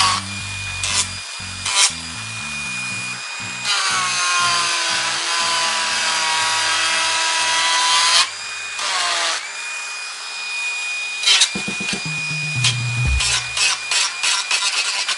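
Handheld rotary tool with a sanding drum whining at high speed as it grinds the edge of a Kydex holster. Its pitch dips and recovers between about four and eight seconds in. A few sharp ticks come near the end.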